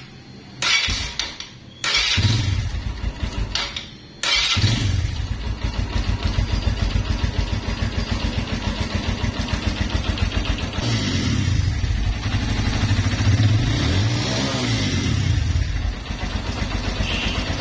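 A Suzuki 150 motorcycle's single-cylinder engine being started: a short first try, then a couple of seconds of cranking and firing that stops, then it catches about four seconds in and keeps running. It is revved up and down a few times partway through. It runs just after a loose spark connection, the cause of its misfire, was tightened and taped.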